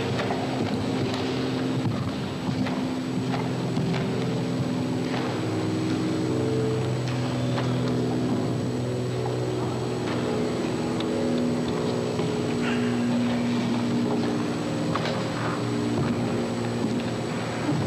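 Steady mechanical hum with several slightly wavering tones, like a running motor, with faint clicks scattered through it.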